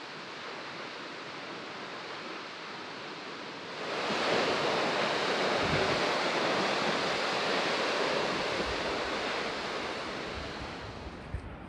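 Steady rush of falling water, like a waterfall, louder from about four seconds in and slowly easing off near the end.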